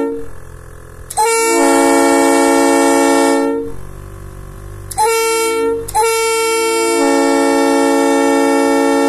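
Nathan Airchime P3 triple-bell train air horn blowing its chord of several notes. A blast dies away just at the start, then comes a long blast of about two and a half seconds, a short one about five seconds in, and another long one from about six seconds in; each starts with a brief upward bend in pitch.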